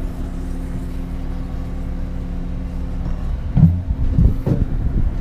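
Steady low hum of a running heavy-machine engine, with a few knocks or thumps from about three and a half seconds in, the first the loudest.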